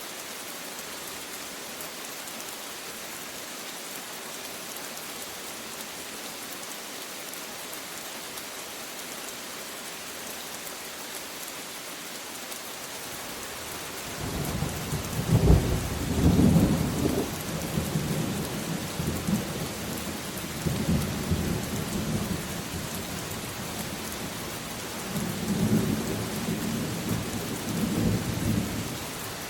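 Steady rain falling, with thunder breaking in about halfway through: a loud clap, then long rolling rumbles that swell again near the end.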